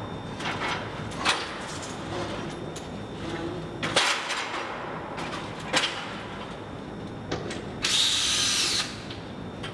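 Several scattered knocks and rustles of handling, then a power drill runs for about a second near the end.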